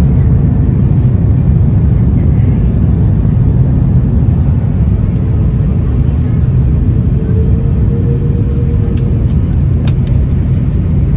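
Steady, loud low rumble inside the cabin of an Airbus A330 with Rolls-Royce Trent 700 engines, with a few sharp clicks near the end.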